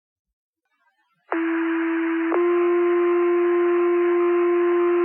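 Two-tone sequential fire pager alert over the dispatch radio. A little over a second in, one steady low tone sounds for about a second, then steps to a slightly higher tone held for about three seconds. This is the tone-out that sets off the volunteer firefighters' pagers before the dispatcher's voice page.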